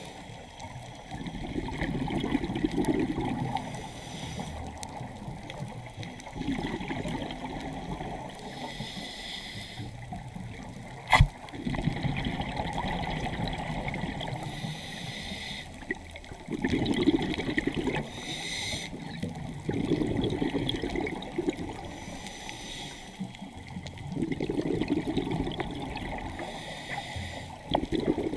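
Moving water trickling and splashing, swelling and easing every few seconds, with one sharp click about eleven seconds in.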